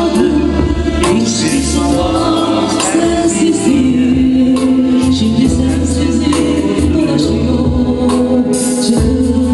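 A woman singing live into a handheld microphone through a PA speaker, over an accompaniment with a steady bass line and percussion.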